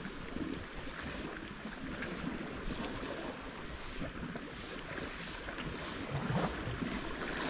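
Steady wash of sea water against the shore, with wind rumbling on the microphone.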